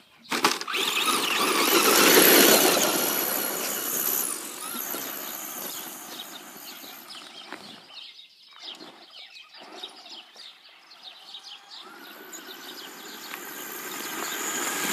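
Radio-controlled truck's motor whining at full throttle, with its tyres on gravel; loudest about two seconds in, it fades as the truck drives away, then grows louder again near the end as it comes back.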